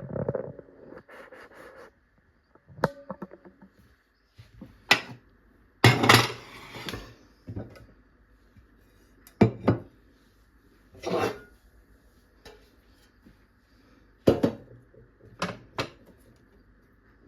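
Kitchen dishes and utensils being handled on a counter: a dozen or so irregular knocks and clatters of bowls and cutlery, with some brief rustling between them.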